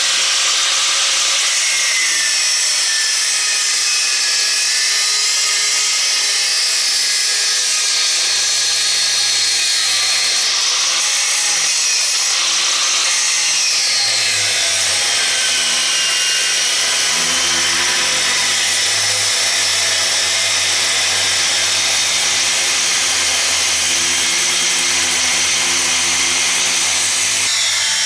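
Angle grinder with a slim cutting disc running continuously, cutting through the steel of a seized Land Rover rear upper suspension arm. Its high whine sags and wavers in pitch about halfway through as the disc is pressed into the metal.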